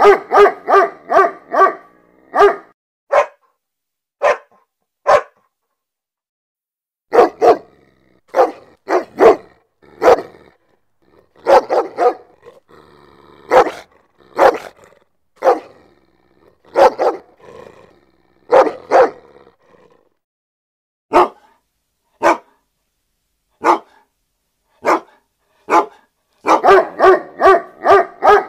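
A dog barking in short, sharp barks. It gives quick runs of several barks a second at the start and again near the end, and single barks about a second apart in between.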